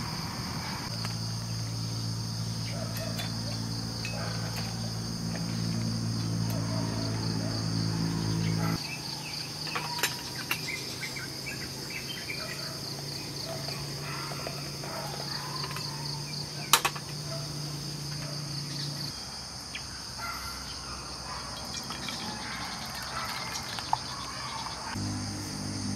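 Steady chorus of crickets and other night insects, a high pulsing trill. A low mechanical hum runs underneath and changes pitch a few times, and a few sharp clicks stand out.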